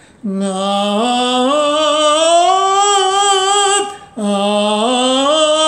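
A male tenor singing a vowel exercise on 'nah': each note starts low, slides up to about an octave higher and is held with vibrato. It is sung with breath support from chest and diaphragm and the larynx pulled slightly down to ease the climb into head voice. The first note breaks off about four seconds in, and a second 'nah' starts low and rises again.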